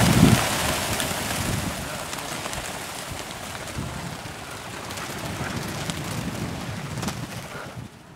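A large flock of partridges flushing at once, their many wings making a dense whirring rush. The rush is loudest at the start, fades as the birds fly off, and drops away near the end.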